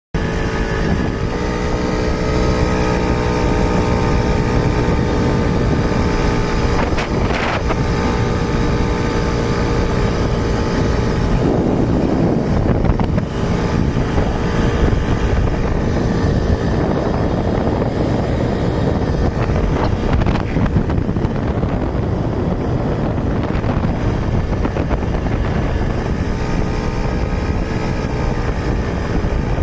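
Suzuki Tornado motorcycle engine running steadily while riding, with wind rumbling on the microphone. The engine note breaks up for a couple of seconds about eleven seconds in, then steadies again.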